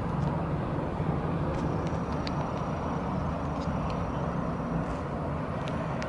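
Steady rumble of distant city traffic, with a few faint high chirps over it.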